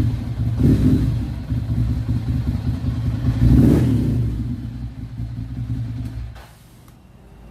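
Ducati Monster 796's air-cooled L-twin engine running and being revved: a short blip about a second in and a bigger rev around three and a half seconds, then the sound falls away and is much quieter near the end.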